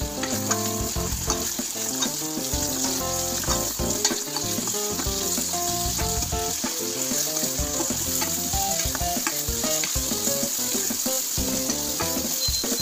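Thick masala paste sizzling in a stainless steel pan as it is stirred with a metal spoon.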